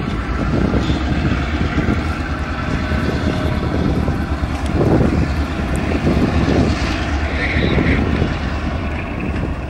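Reading Blue Mountain and Northern freight train: a diesel locomotive's steady engine drone together with the rumble of freight cars rolling along the track.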